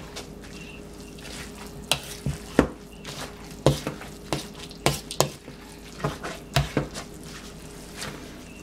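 Metal utensil knocking and scraping against a stainless steel mixing bowl as moist cornbread dressing is mashed and stirred with stock. The sharp irregular clicks come about twice a second, starting about two seconds in.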